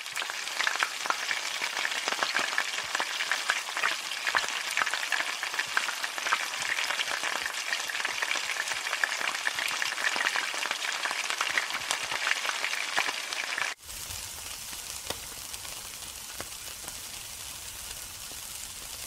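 Food frying in a hot pan, sizzling with many small pops. About fourteen seconds in it cuts abruptly to a quieter, steadier hiss with a low rumble underneath.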